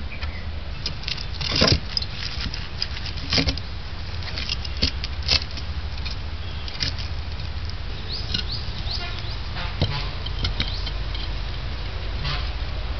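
Bricks being handled and set against one another at the front opening of a charcoal kiln: a series of irregular clacks, knocks and scrapes, a few louder ones in the first half and another near ten seconds, over a low steady hum.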